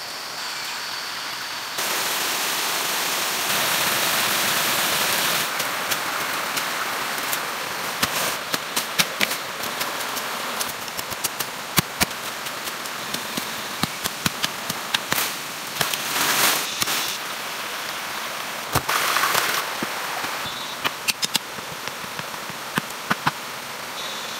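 Steady rushing outdoor noise, like running water, with many sharp snaps and clicks of hands working plant stems and wood scattered through it. The noise jumps louder about two seconds in and changes level several times.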